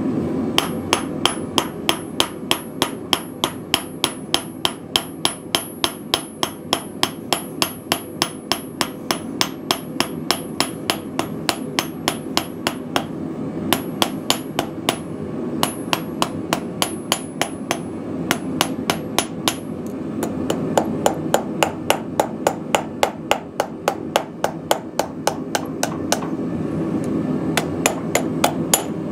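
Small hand hammer striking red-hot steel on a small Viking-style stake anvil set in a wooden stump, about three blows a second with brief pauses. Each blow has a short metallic ring.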